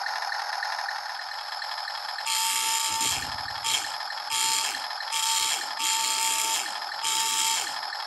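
1:72 scale radio-controlled toy Tiger tank's built-in sound unit: a steady buzzy electronic engine hum, broken from about two seconds in by six short bursts of louder whirring buzz as its motors are driven in quick on-off jabs.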